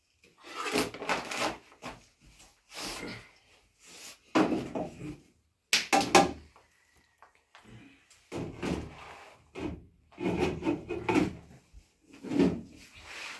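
A metal ladle scraping and knocking against a pan and metal bowls as stew is dished out, with bowls set down on the floor; an irregular run of knocks and scrapes, the sharpest about six seconds in.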